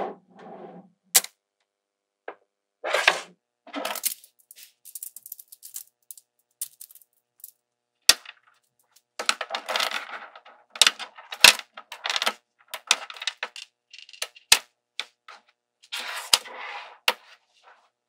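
Small magnetic metal balls clicking and clattering as they snap together and are pulled into a chain. Irregular sharp clicks come throughout, with several short rattling runs.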